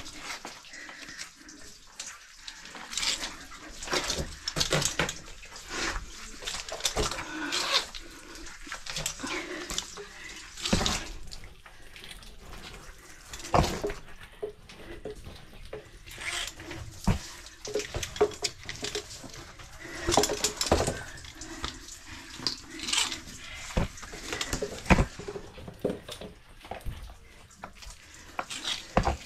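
Cavers scrambling through wet cave mud: irregular scuffs, squelches and knocks of boots and gear on a muddy slope.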